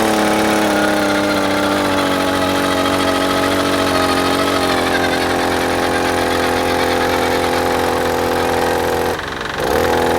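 A 52 cc two-stroke petrol earth auger engine running steadily at high revs. The pitch settles a little lower about halfway through, and near the end the revs drop and pick up again for about half a second.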